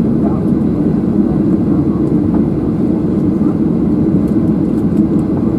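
Steady low drone inside the cabin of a Boeing 737-700 taxiing after landing, with its CFM56-7B engines at idle.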